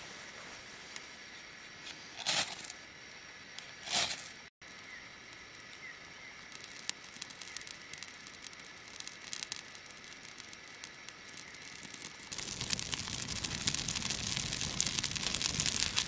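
Two short scraping strikes to light a fire, then faint scattered crackling as birch-bark tinder catches. About twelve seconds in, a blazing campfire crackles loudly and densely.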